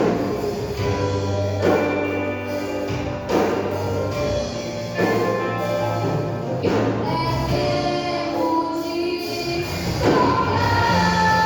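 Live gospel band playing a hymn with singing, a strong beat accent falling about every second and a half.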